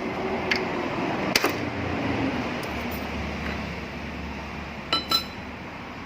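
Metal transmission parts clinking as they are handled during disassembly. There are a few sharp clinks, the loudest about a second and a half in, then two quick ringing metallic clinks around five seconds in.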